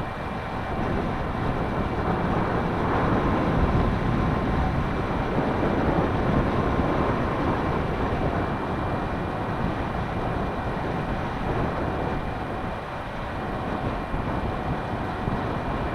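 Wind buffeting the microphone, its rushing level rising and falling, with faint steady whines running underneath.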